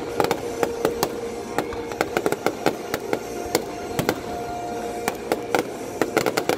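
Aerial fireworks shells bursting in quick, irregular succession, a string of sharp bangs and crackles, over show music with long held notes.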